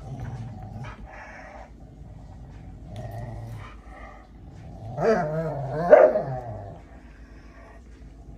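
Two dogs play-growling during a tug of war over a stuffed toy, with a louder bout of barking growls about five seconds in.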